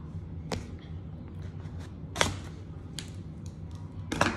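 Cardboard box being handled and lifted: several short, sharp taps and clicks spaced out over a few seconds, the loudest about two seconds in and another pair just before the end, over a low steady hum.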